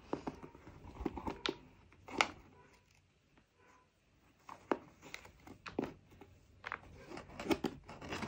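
Twine being untied and pulled off a cardboard gift box: soft, irregular rustles and light taps of string and fingers against the cardboard, with a short quiet pause about three seconds in.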